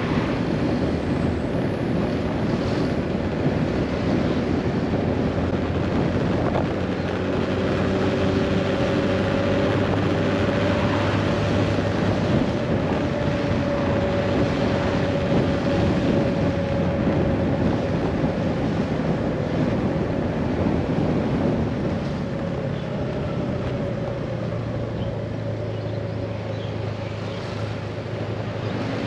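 Scooter engine running steadily under way, with wind buffeting the microphone and road noise. The engine settles a little quieter about three quarters of the way through.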